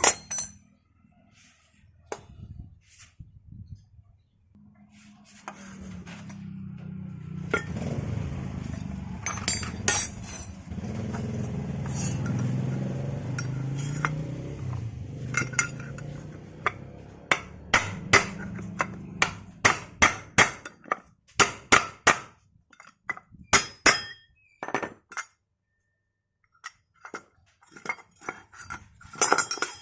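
Metal parts and hand tools clinking and tapping on a Honda Vario 150 scooter's rear pulley assembly, with a quick run of sharp taps in the second half, as a retaining pin is worked loose.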